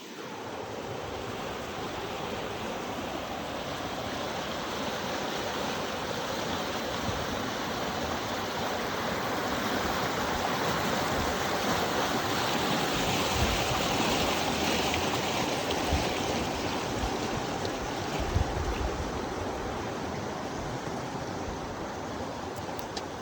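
Rushing creek water: a steady rush that grows louder toward the middle and eases off near the end, with a few soft low thumps.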